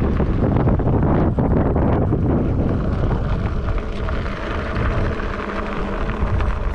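Wind buffeting the microphone of a camera on a moving bicycle, over the rumble of tyres rolling on a gravel trail. The noise is loud and steady, with no break.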